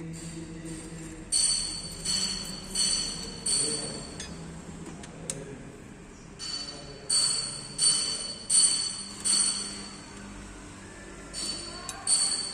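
Metal being struck repeatedly, each blow ringing. The blows come in runs of four or five, about 0.7 seconds apart.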